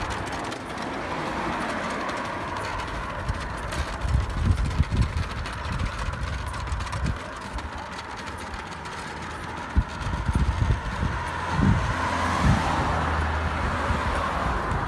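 Wind rumbling and buffeting on the microphone over the steady road noise of a bicycle being ridden along a forest track, with irregular low thumps.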